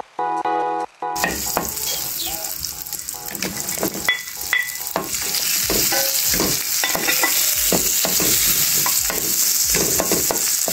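Sliced white onion frying in butter in a pan: a steady sizzle, with a wooden spatula scraping and stirring the rings. Over about the first second there are a few short notes of music before the sizzle starts.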